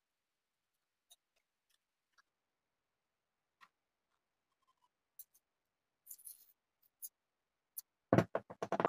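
Faint scattered clicks of hands handling a knife and a small tool, then near the end a loud rapid crackling run as masking tape is pulled off its roll.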